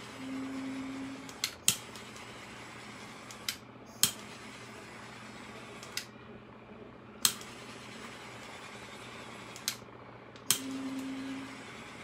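Handheld butane torch hissing as it is passed over wet epoxy to pop micro bubbles, cut off and restarted with sharp clicks of its trigger every second or two. A short low hum sounds for about a second near the start and again near the end.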